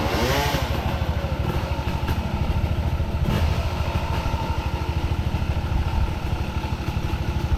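Off-road dirt bike engine running steadily, with a fast, even firing beat.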